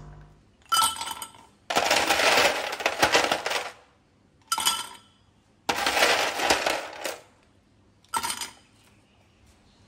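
Ice cubes clinking and rattling as they are taken from a plastic ice box and dropped into a double-walled glass. The sound comes in five bursts, the second and fourth lasting one to two seconds each.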